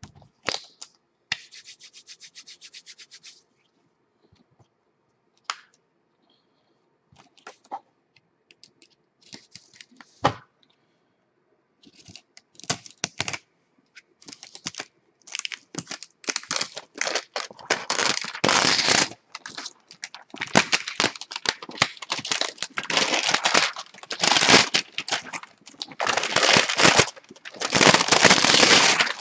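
Sealed trading-card box being opened by hand: a few scattered clicks and scrapes at first, then, from about halfway, repeated tearing and crinkling of packaging that grows louder.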